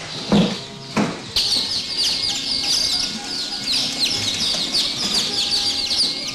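A crowd of newly hatched chicks peeping in a crate: a dense, continuous chorus of short, high, falling peeps that starts about a second and a half in. Two dull knocks come just before it.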